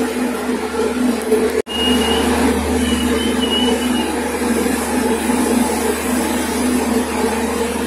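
Steady running noise of a passenger train's coaches rolling slowly past on the next track, with a constant hum underneath. The sound drops out for an instant about a second and a half in, and a few faint high chirps come soon after.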